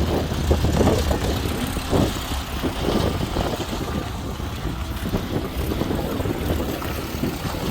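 A vehicle engine running, with wind buffeting the microphone in irregular gusts.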